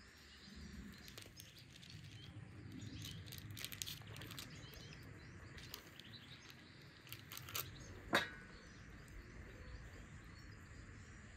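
Quiet handling sounds of dough rings being pressed on parchment paper in a metal baking pan and jam being spooned, with small clicks and one sharp clink about eight seconds in. Birds chirp faintly in the background.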